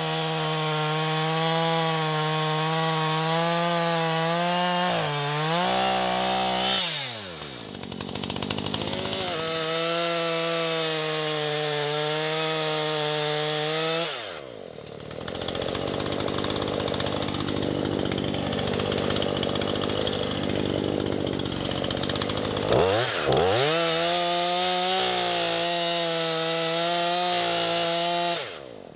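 Two-stroke chainsaw running at full throttle as it cuts through a tree trunk. The engine note drops and climbs back as the throttle is eased off about a quarter of the way in and again about halfway, runs rougher under load in the middle, and falls away at the end.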